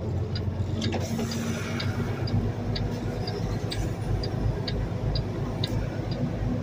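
Semi truck's diesel engine running at low speed, heard from inside the cab, with a flasher relay clicking steadily about twice a second. A short hiss comes about a second in.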